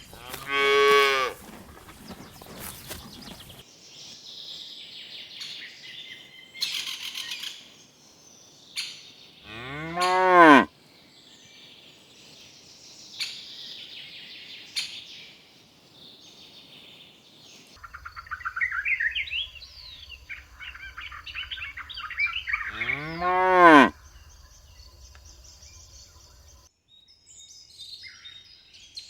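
Cattle mooing: three loud calls of about a second each, near the start, about ten seconds in and near the end, each rising then falling in pitch. Birds chirp and twitter between the calls.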